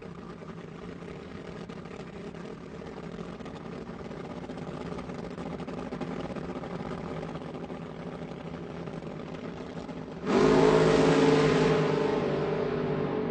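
Sports car engine running at a steady speed, slowly growing louder. About ten seconds in, a much louder sound with several steady tones starts suddenly and slowly fades.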